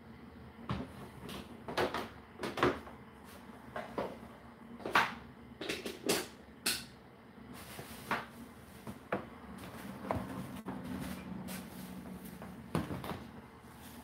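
Whirlpool WFO3P33DLXUK dishwasher running mid-wash: a steady low hum from inside the machine, broken by irregular knocks and clatters, about one or two a second at first and sparser after.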